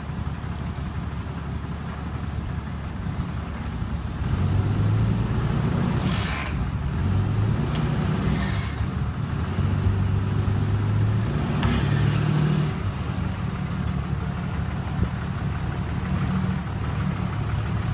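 An engine running steadily with a low hum. The hum grows louder about four seconds in and rises and falls after that, and a few short hissing noises come in between.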